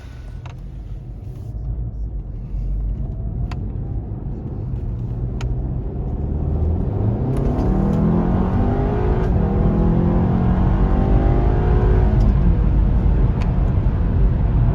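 Tuned MK7 VW Golf R's turbocharged EA888 four-cylinder accelerating under load: the engine note grows louder and its pitch climbs, then holds high. It pulls smoothly with no stumble, a sign that new colder spark plugs and coil packs have cured a cylinder 3 misfire.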